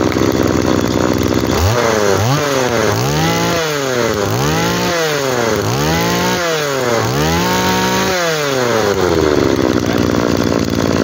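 Mitsubishi 26 cc two-stroke brush-cutter engine running. It is revved up and down about six times with throttle blips, then drops back to a steady idle near the end.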